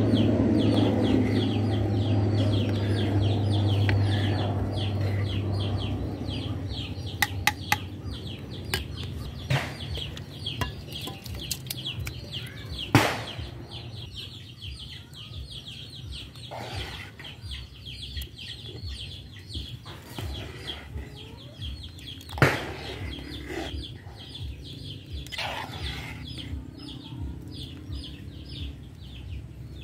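Chickens clucking in the background throughout, with a metal ladle knocking sharply against the cooking pot during stirring, loudest twice, about 13 and 22 seconds in. A low rumble dies away over the first few seconds.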